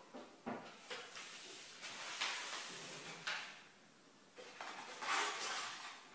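Packaging being handled: a few light knocks, then two longer stretches of rustling and sliding scrapes.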